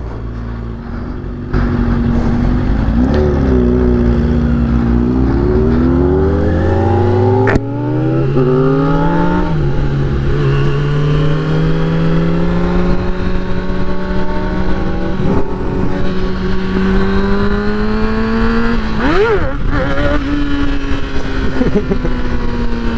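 2009 Kawasaki ZX-6R's inline-four engine pulling away from a stop. The revs climb through the gears with quick upshifts about seven and a half and nine and a half seconds in. It then runs steadily at cruising speed, the revs rising slowly, with a brief dip and recovery near the end.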